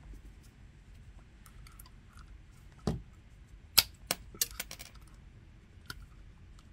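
Pliers clicking and snapping against the wires in a metal outlet box: a few sharp clicks, the loudest just after the middle followed by a quick run of several, then one more near the end.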